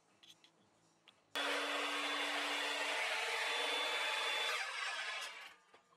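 A few light clicks, then an Evolution Fury miter saw starts suddenly and runs for about three seconds as its blade cuts down through a new wooden zero-clearance insert, making the insert's first kerf. The saw then winds down over about a second.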